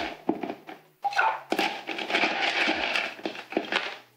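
Ice cubes dropped into a metal cocktail shaker tin: a run of irregular clinks and knocks, with a brief break about a second in.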